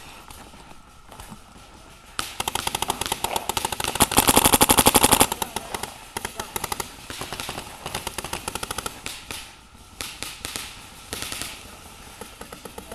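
Paintball markers firing rapid strings of shots, up to about a dozen a second. The loudest, densest burst runs from about two to five seconds in, with shorter, scattered strings of shots after it.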